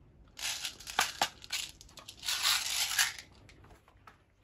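Plastic airsoft M4 magazines handled and scraped against each other and the hands: a scratchy rustling with two sharp plastic clicks about a second in, ending about three seconds in.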